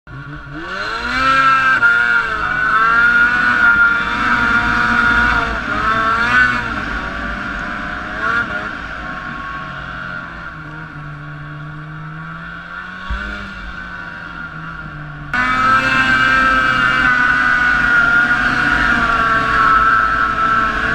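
E-TEC 800 two-stroke twin snowmobile engine running, the engine the owner says is misfiring. Its revs climb over the first couple of seconds and are blipped up and down several times, then it settles to a lower speed. About fifteen seconds in it jumps abruptly back to higher, louder running.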